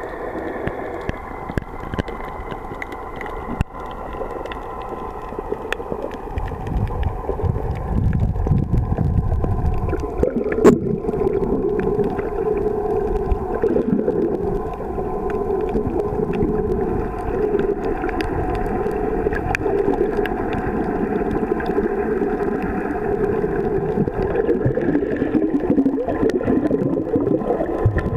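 Muffled underwater sound picked up by a submerged camera: a steady drone of several held tones over an uneven rumble of moving water, with scattered faint clicks and one sharper click about ten seconds in.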